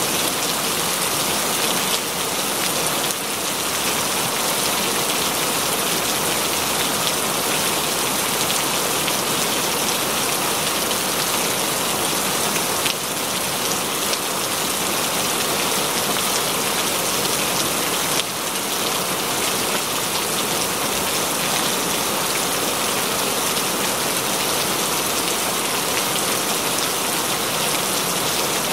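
Steady, even rain, a dense patter of drops with no thunder.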